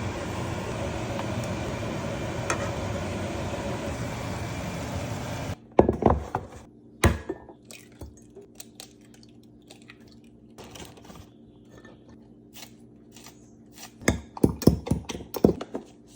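A steady rushing noise cuts off suddenly about five and a half seconds in. Then come scattered knocks and clatters of kitchen utensils and dishes, with a quick run of them near the end.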